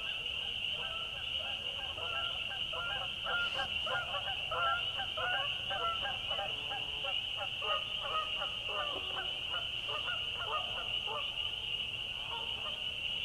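A flock of waterfowl honking, with many short, quick calls overlapping in the middle of the stretch, over a steady high-pitched chorus.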